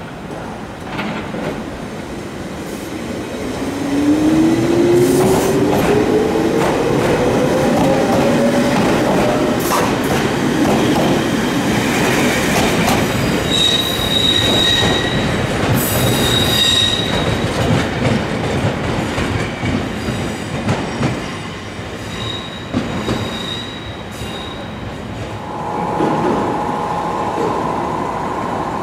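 Toyama Chiho Railway 14760-series electric train pulling away, its motor whine rising in pitch as it gathers speed over the rumble and clatter of the wheels. Twice in the middle come short high-pitched wheel squeals. Near the end, a steady hum from a train standing at the platform.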